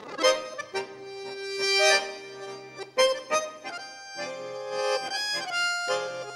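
Chromatic button accordion played solo: the opening of a tango, starting abruptly from silence with sharp accented chords between held reedy notes.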